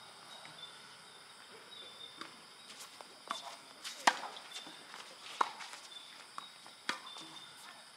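Tennis rally on a hard court: racket strikes on the ball and ball bounces, a string of sharp pops from about three seconds in, the loudest about four seconds in.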